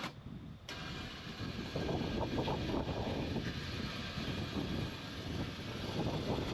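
Electric winch running, reeling in its cable under load to tow something; a steady mechanical drone that grows louder about two seconds in.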